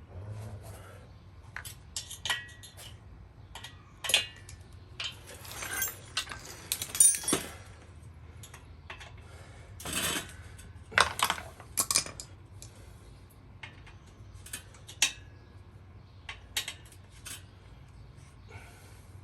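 Hand tools and loose metal parts clinking, tapping and rattling in irregular bursts as a recumbent tandem trike is taken apart, some strikes ringing briefly; busiest about five to eight seconds in and again around ten to twelve seconds.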